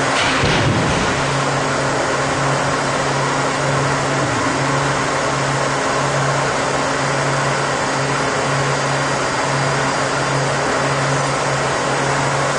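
Shake-table machinery running during a simulated earthquake: a steady loud rushing noise under a low hum that swells and fades, with a few knocks in the first second.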